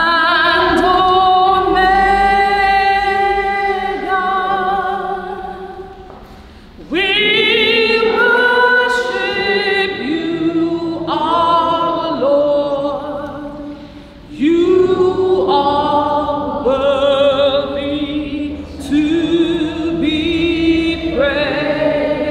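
Voices singing a hymn unaccompanied, a cappella, a single melody line in three long sustained phrases with short breaths between them.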